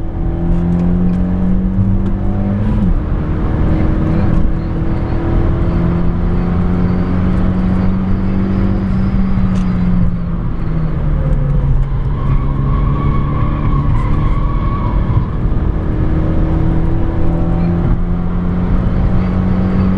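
Renault Megane 225's turbocharged four-cylinder engine with an aftermarket exhaust, driven hard on track and heard from inside the car. The engine note climbs under acceleration, drops sharply at a gear change about three seconds in, falls again around ten seconds when the driver lifts, then climbs once more.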